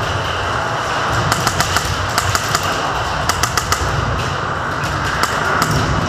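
Airsoft guns firing: short bursts of three or four sharp cracks, a second or so apart, and one single crack near the end, over a steady noise bed.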